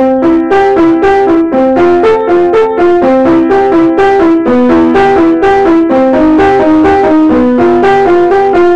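Piano played in a steady run of broken chords, about five notes a second, the pattern shifting up and down through chord positions, cut off abruptly near the end.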